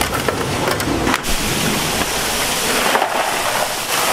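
Oyster shells clattering and knocking onto a conveyor and into a plastic crate, then, about a second in, a sudden change to a steady rush of water pouring from a pipe onto the oyster sorting table.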